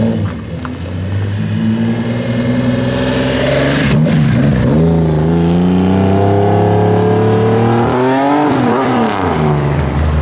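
Nissan Skyline 'Hakosuka' with an S20 twin-cam straight-six accelerating away: the exhaust note climbs, drops at a gear change about four seconds in, climbs again through the next gear and falls away after about eight and a half seconds. Near the end another car's engine passes close by.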